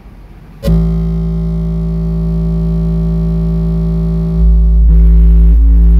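A 55 Hz test tone played through two Soundstream XXX 15 subwoofers driven by two Taramps Smart 3 Bass amplifiers at 0.7 ohm. The tone starts abruptly under a second in, holds steady with many overtones, and steps up sharply in level a little after four seconds as the bass knob is turned up.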